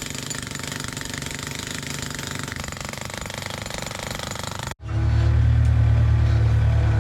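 Jackhammer breaking up concrete, a fast, steady hammering. It cuts off abruptly a little under five seconds in and gives way to a louder, steady engine running.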